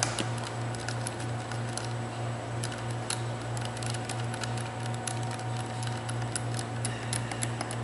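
Scattered light clicks of a hex screwdriver turning screws down into a plastic tool housing, over a steady low hum.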